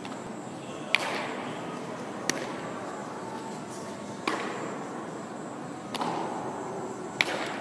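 Baseballs smacking into leather gloves during throwing drills: five sharp pops spaced one to two seconds apart, each echoing in a large indoor hall.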